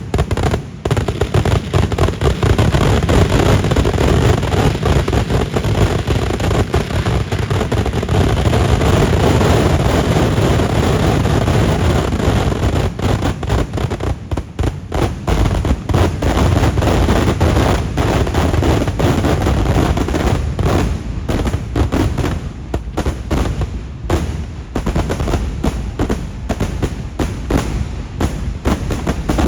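A dense, continuous barrage of firecracker explosions from a Kerala daytime festival fireworks display (vedikettu), many bangs a second merging into a rattling, rumbling roll. The bangs thin out and grow sparser near the end.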